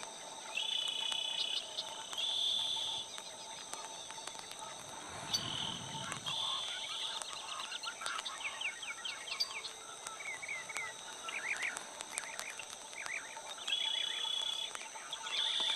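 Insects calling: a steady high-pitched buzz runs throughout, with short trills about a second long repeated several times. Small birds chirp in a quick series in the middle.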